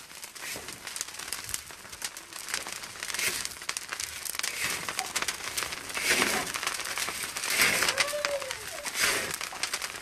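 Fire of dry cactus wood and desert brush crackling under a salt-roasting pan, a dense run of small irregular snaps with a few louder swells.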